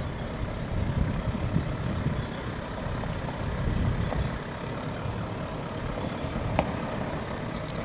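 Toyota LandCruiser 70-series V8 turbo-diesel engine running at raised revs with the rear differential locked and the front open. The front right wheel spins and the truck cannot climb, so the extra revs make no difference.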